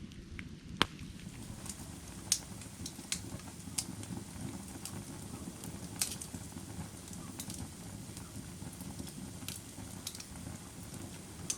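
Burning firewood: a steady low rumble of the fire with sharp crackles and pops at irregular intervals, the loudest pop about a second in.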